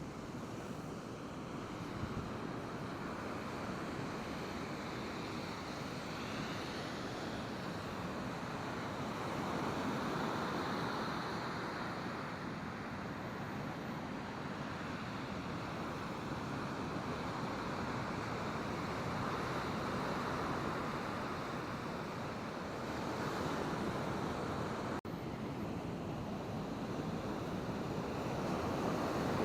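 Ocean surf washing in with slow swells and wind on the microphone. The sound cuts out for an instant about 25 seconds in.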